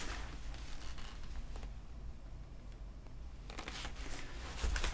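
Faint rustling and scraping of a cardboard box lid being lifted off and handled, quieter in the middle, with a soft bump near the end.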